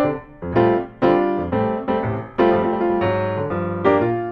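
Background piano music: notes and chords struck every half second or so, each fading before the next.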